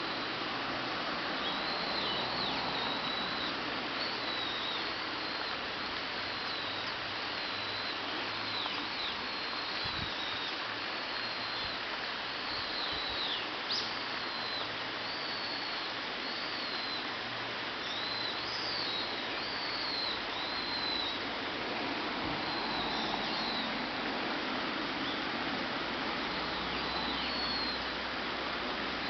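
Japanese white-eyes giving short, high, thin calls, many of them scattered throughout, over a steady background hiss.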